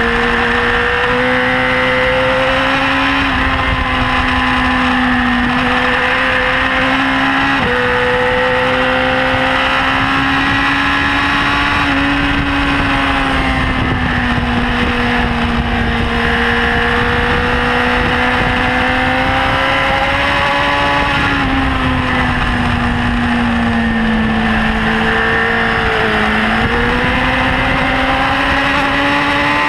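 BMW S1000RR's inline-four engine running hard at high revs on track, its pitch rising and falling through corners with an abrupt step about eight seconds in, a gear change. Wind rush over the bike runs under the engine note throughout.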